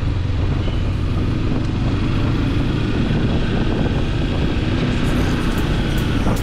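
Vehicle on the move: a steady engine and road rumble.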